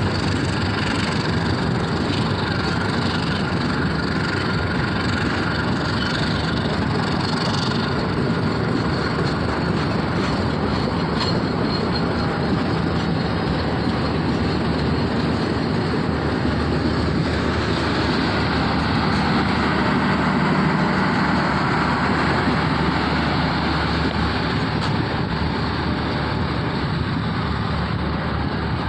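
Steady rumble and rail noise of a passenger train running past.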